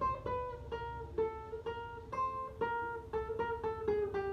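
Guitar playing a single-note melody of a circus clown tune high on the first and second strings: a run of about a dozen plucked notes, roughly three a second, stepping gradually down in pitch.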